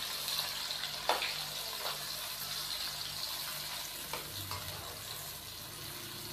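Sliced onions sizzling in hot cooking oil in a non-stick karahi while being stirred with a wooden spatula. The spatula knocks against the pan a few times.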